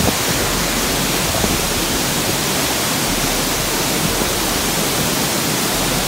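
Tall waterfall's falling water making a steady, even rush of noise.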